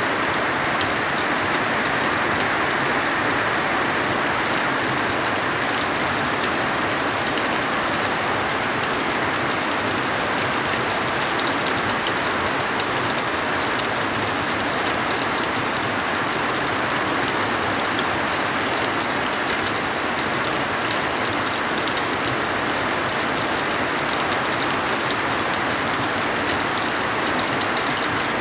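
Heavy rain pouring steadily: a dense, even hiss of falling water with faint scattered drop ticks.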